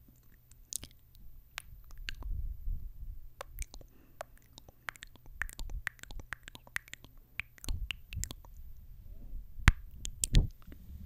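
Close-miked kissing and lip smacking: a long string of short wet smacks and pops from lips at the microphone, with the two loudest smacks near the end as the lips press onto the grille.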